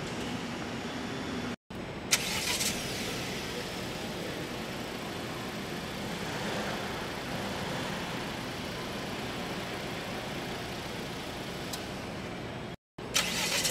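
A car's engine running with a steady hum and hiss. A sharp click comes about two seconds in, and the sound drops out briefly twice.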